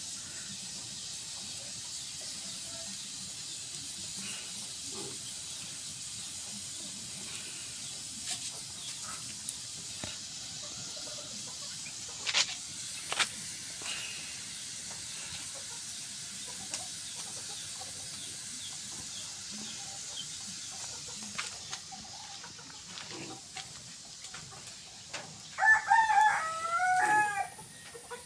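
A rooster crows once near the end, a call of about two seconds whose pitch rises and then falls. Under it runs a steady low hiss with a few sharp pops about halfway through, typical of an open wood fire crackling.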